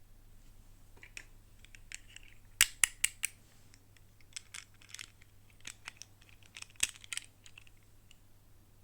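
Plastic toy packaging and parts handled by hand: irregular sharp plastic clicks and light crinkles, with a cluster of louder clicks about two and a half seconds in and another about seven seconds in.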